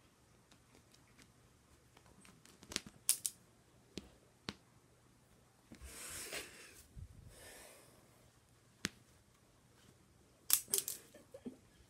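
Handling noise from a phone camera: scattered sharp clicks and taps, with a rubbing, rustling noise for about two seconds in the middle as the phone is moved about.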